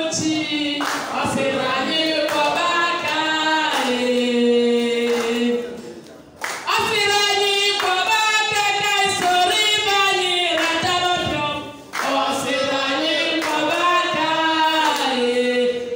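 A group of voices singing together without instruments, in long held phrases with brief pauses about six and twelve seconds in, with some hand-clapping.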